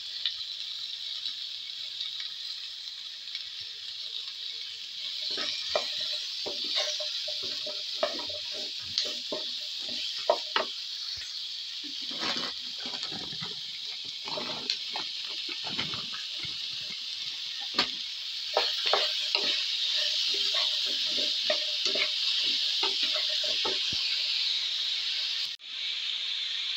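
Onions, carrots and peppers sizzling in a nonstick frying pan, with a wooden spatula scraping and knocking against the pan in many quick strokes as the vegetables are stirred from about five seconds in. The sound cuts out for an instant near the end.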